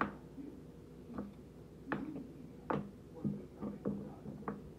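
Kitchen knife cutting pineapple on a wooden cutting board: a string of light, irregular knocks of the blade on the board, roughly one every half second to a second.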